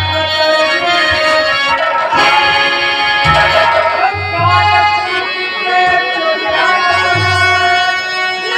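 Nautanki stage song: a man sings loudly over a harmonium's held reedy chords, with a few low drum strokes.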